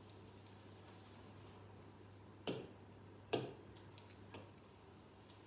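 Plastic stylus rubbing quickly across an interactive whiteboard's glass screen as the writing is erased, then two sharp taps on the screen about a second apart, followed by two fainter taps. A steady low electrical hum runs underneath.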